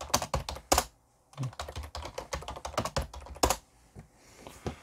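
Typing on a computer keyboard: quick runs of keystrokes with short pauses, thinning out to a few scattered taps after about three and a half seconds.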